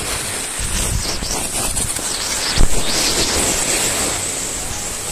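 Skis sliding and hissing over groomed snow at speed, with wind rushing over the microphone. A short thump about two and a half seconds in.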